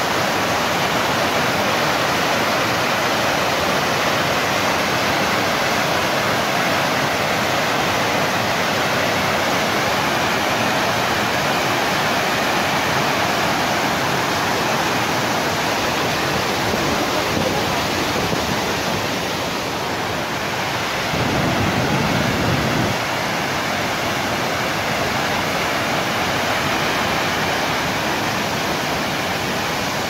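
Waterfall: a steady, even rush of falling water, with a brief low rumble a little past the middle.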